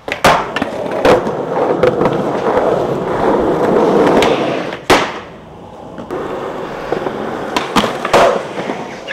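Skateboard tricks on concrete: sharp pops and landing clacks, with the rumble of wheels rolling in between and a loud crack about five seconds in.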